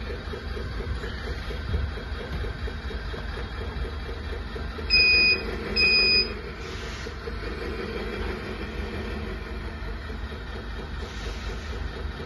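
Simulated truck engine idling from the sound module's speaker in a 1/14 RC Zetros 6x6 tractor truck: a steady low rumble with a regular pulse. About five seconds in, two loud electronic beeps about a second apart.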